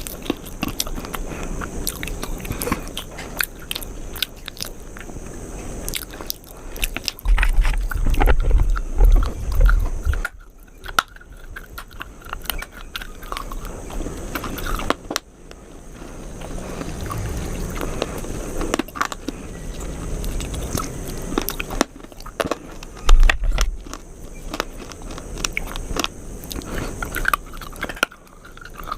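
A person chewing and crunching food close to the microphone, with crisp crackles and mouth clicks throughout. There are heavier low thuds about a quarter of the way in and again later on.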